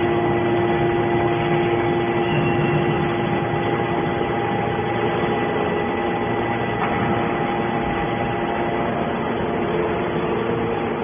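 Hydraulic scrap metal baler running: the steady hum of its hydraulic power unit, with a constant whine held at a few pitches.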